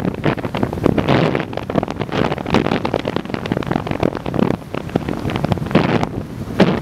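Gusty wind buffeting the microphone in uneven surges, over the rush of churning glacier-lagoon water.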